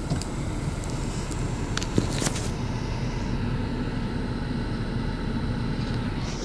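Steady low rumble of a coach engine heard from inside the bus, with a couple of short knocks about two seconds in.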